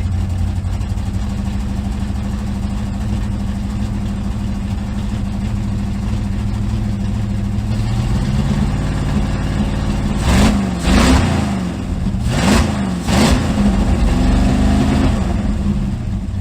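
Z28 Camaro race car's V8 engine idling, picking up speed about eight seconds in and then revved in four quick throttle blips before settling back to idle. Its ignition timing has just been set, which the owner judges pretty damn close.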